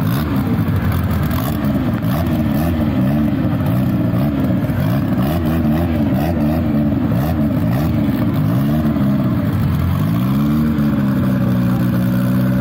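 Drag car's engine blipped over and over, the revs rising and falling in quick arcs, then climbing once and held at a steady rpm near the end.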